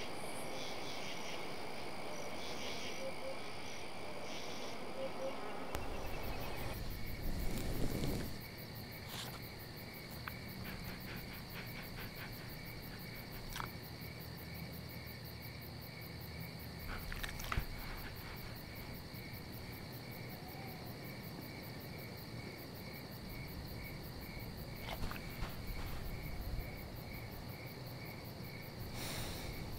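Crickets chirping in a low, steady background, becoming a regular pulsing chirp from about seven seconds in, with a few faint clicks and taps.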